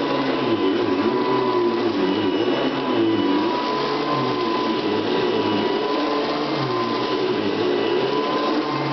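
Hoover Convertible upright vacuum cleaner running steadily, its motor giving a constant high whine over a lower hum that wavers up and down in pitch.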